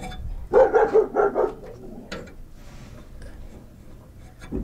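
A dog barking, a quick run of barks in the first second and a half, followed by a couple of sharp clicks.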